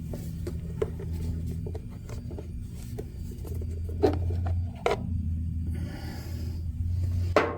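A few sharp knocks and a brief scrape of engine parts being handled, over a steady low hum.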